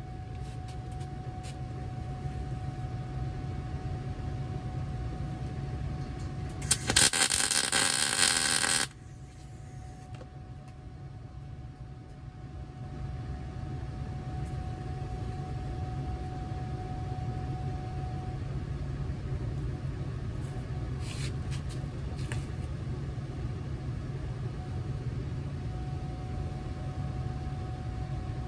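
MIG welder laying a short tack weld on a steel ring: about two seconds of loud, even arc crackle a quarter of the way in, stopping abruptly. A steady low hum runs underneath.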